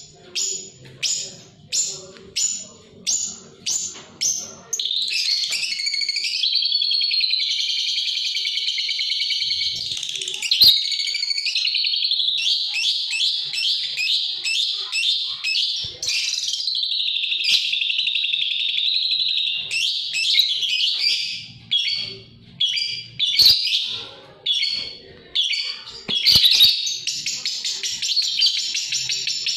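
A songbird singing: sharp chip notes about twice a second, then from about five seconds in a long unbroken chattering warble, breaking back into separate chips in the last third.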